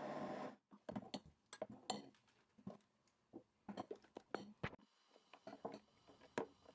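An immersion blender running in cake batter cuts off about half a second in. After that comes a series of light clicks and knocks: a metal ladle scooping and stirring thin chocolate batter against a glass bowl.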